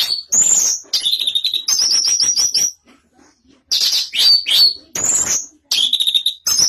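Orange-headed thrush singing loudly in a rapid run of phrases mixing clear whistled notes with quick series of repeated notes, with brief pauses between the phrases.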